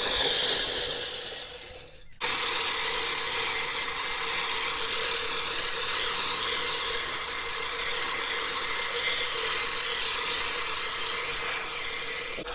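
Manual push reel mower rolling over grass, its spinning reel blades making a steady whirring rasp as they cut. The sound dips and then comes back abruptly about two seconds in.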